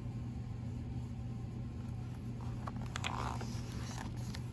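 A picture book's paper page being turned, a short soft rustle about two-thirds of the way through, over a steady low hum.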